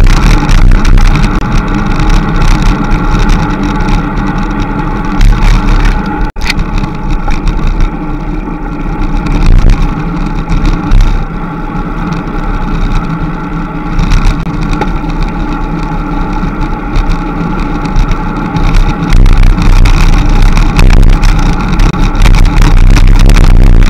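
Steady, loud rumbling noise of riding a road bicycle on asphalt, picked up by a bike-mounted action camera, with the rush of air over the microphone. The rumble is heaviest in the low end and breaks off sharply for an instant about six seconds in.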